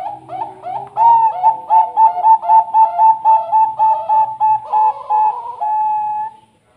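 Bangkok-strain zebra dove (perkutut) singing its cooing song. A few soft notes lead into a fast run of loud, trilled coos, about three or four a second, and it ends in one long drawn-out note.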